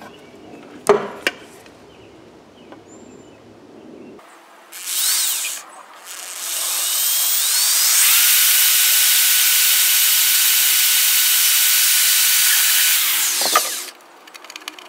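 Corded electric drill blipped briefly, then spun up with a rising whine and run steadily for about six seconds boring a hole through a thin plastic specimen container, winding down with a falling pitch near the end. A few clicks of the drill being handled come about a second in.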